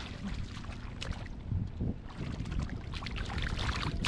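Shallow muddy water sloshing and splashing as it is worked by hand, in short irregular splashes over a steady low rumble.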